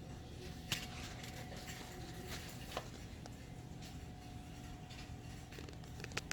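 Store room tone: a steady electrical or ventilation hum with a few faint clicks and knocks, the loudest about a second in and again near the end.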